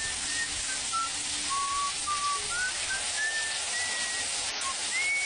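Shower water spraying steadily onto a cat in a tiled shower stall, a constant hiss. Faint, high whistle-like tones come and go over it.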